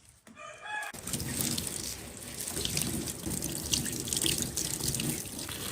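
Tap water running into a sink with splashing, as something is rinsed under it; it starts about a second in.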